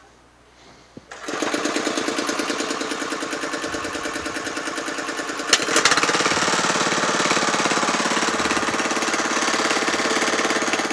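Honda GX160 single-cylinder petrol engine, governed to run slowly at about 1000 rpm, driving a DC dynamo made from a Flymo hover-mower motor to charge a 12 V vehicle battery. It starts abruptly about a second in with an even pulsing beat; about five and a half seconds in there is a sharp click and the sound turns louder and brighter.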